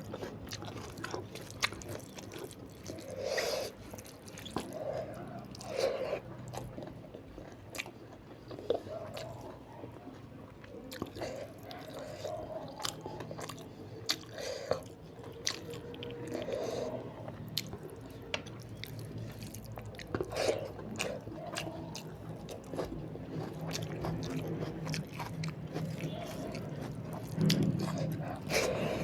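Close-miked eating sounds: steady wet chewing of a rice-and-curry meal, with many small mouth clicks and smacks and an occasional crisper bite.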